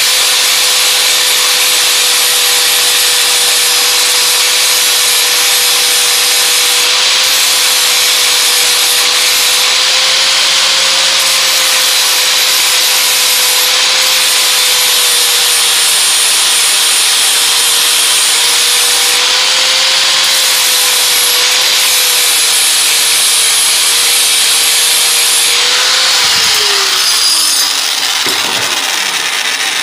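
Angle grinder fitted with a wire wheel running steadily, its motor hum under the loud hiss of the wire scrubbing rust off steel. About four seconds before the end it is switched off and spins down with falling pitch, followed by a few light knocks as it is set down.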